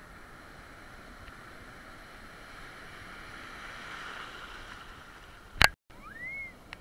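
Surf breaking and washing in the shallows, a steady rush of water that builds toward the middle. Near the end a single sharp knock, a brief gap, then a short high sound that rises and falls.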